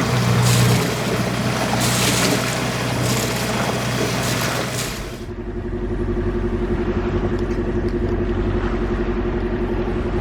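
A boat under way. First comes water rushing past the hull, surging about once a second over a low motor hum. About halfway through it gives way suddenly to a steady engine drone.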